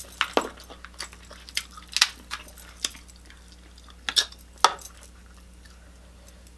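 Close-up eating of a seafood boil: a run of short, sharp cracks and clicks as crab leg shells are broken and the meat picked out, with light chewing. The cracks stop about five seconds in.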